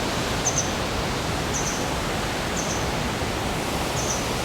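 Steady rushing roar of the Düden waterfall's falling water. A short high chirp repeats about once a second over it.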